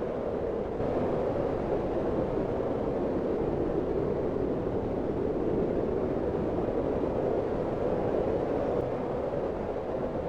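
Strong blizzard wind blowing as a steady howling rush, a little louder after about the first second.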